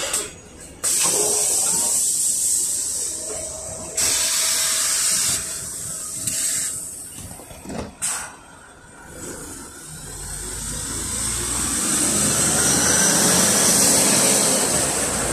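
LiAZ 5292.67 city bus with a YaMZ-53624 natural-gas engine pulling away from a stop: a low engine rumble and tyre noise build steadily with a faint rising whine as it accelerates. Earlier, loud hissing comes in suddenly about a second in and again about four seconds in.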